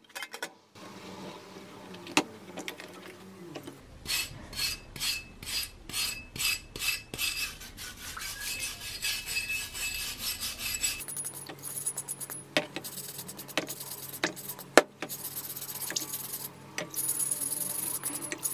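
Wire brush scrubbing a steel hatchet head in a tray of water, taking off rust loosened by electrolysis. It starts as quick back-and-forth strokes, about two a second, then turns into denser, more continuous scratching.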